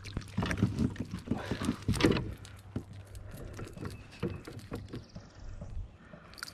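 A hooked white bass flapping and knocking against a plastic fishing kayak as it is landed: a quick run of knocks and splashy clatter, loudest in the first two seconds, then lighter taps and rattles as it hangs from the crankbait.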